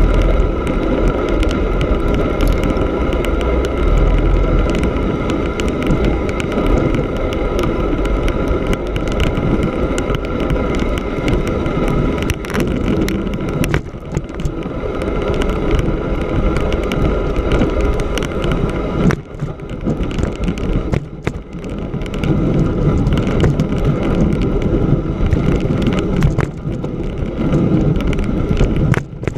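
Bicycle riding over snow on lake ice: the knobby tyres roll with a steady hum, the bike rattles with many small clicks, and wind rumbles on the microphone. The sound eases briefly about twenty seconds in.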